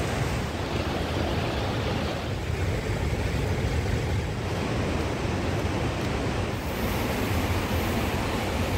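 Steady rushing noise with a deep low rumble, even in level throughout and without distinct events.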